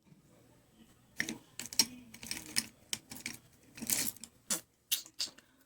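Makeup compacts and brushes being handled: a run of irregular sharp plastic clicks and taps with light rustling, starting about a second in.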